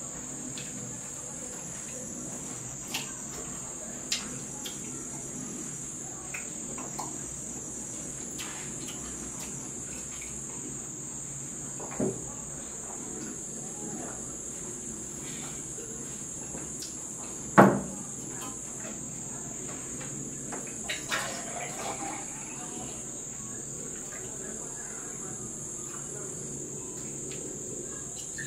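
Steady high-pitched chirring of an insect chorus, like crickets, throughout, with a few scattered clicks and knocks; the sharpest knock comes about two-thirds of the way through.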